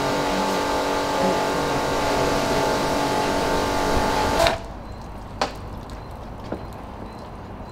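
Pressure washer jet spraying water into a trolleybus roof air-conditioner's condenser grille, a loud steady hiss over a pump's steady hum, cut off suddenly about four and a half seconds in. After it, a quieter background with a couple of sharp knocks.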